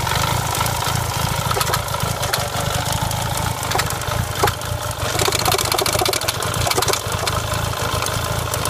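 Renault Clio 172 Cup's 2.0-litre four-cylinder engine idling with a rattle and irregular clicks, the sound of a misfiring engine.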